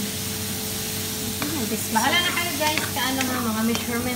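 Shrimp and vegetables sizzling in a hot frying pan while being stirred with a wooden spoon. A faint steady hum runs underneath.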